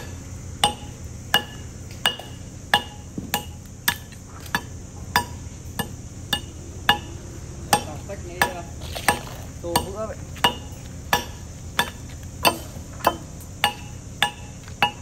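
Hammer driving a steel chisel into concrete, chipping with steady blows about every two-thirds of a second, each blow giving a short metallic ring.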